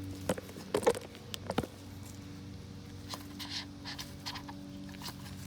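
Small clicks and scraping of hands working the O-ring off a car's oil filter housing cap: several sharp clicks in the first second and a half, then softer rustling. A steady low hum runs underneath.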